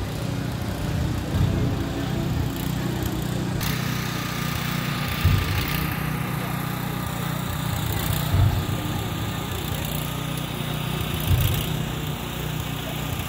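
Steady drone of a small petrol engine, the generator that lights the procession float. A brass band plays a slow funeral march beneath it, with a deep thump about every three seconds.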